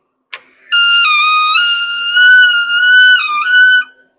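A short click, then a loud, high, trumpet-like horn playing a few wavering notes for about three seconds, then it stops.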